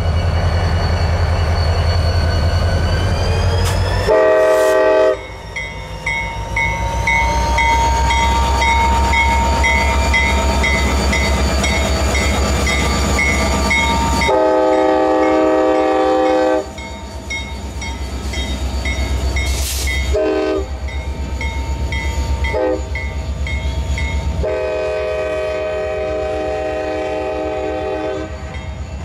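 Diesel freight locomotive pulling a rail train past, its engine rumbling low while the cars roll by. Its horn blows several times: a blast about four seconds in, then a long one, a short one, a brief toot and a final long one in the second half.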